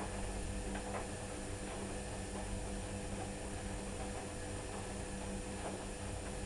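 Candy washing machine's drum motor running with a steady hum as it slowly turns the load before another rinse, with a few faint clicks from the tumbling drum.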